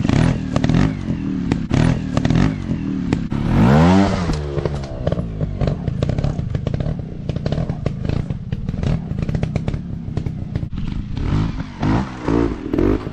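Trail motorcycle engine revving hard and dropping back, about four seconds in and again near the end, over a rapid, loud clatter throughout.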